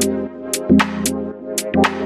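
Electronic background music with a steady drum beat and held chords.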